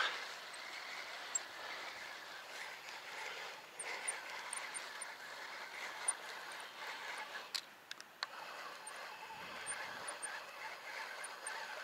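Faint, steady outdoor background hiss with no clear source in it, broken by two sharp clicks about two-thirds of the way through and a few faint high chirps.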